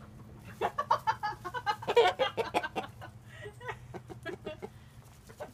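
Chickens clucking and squawking in a rapid, excited flurry, loudest about two seconds in, then thinning to scattered clucks: hens agitated as they chase one that has caught a small snake.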